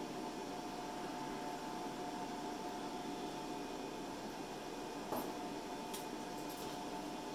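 Steady hum and hiss with a faint steady whine from the powered-on Quick Anneal induction case annealer idling between cycles, with a single light click about five seconds in.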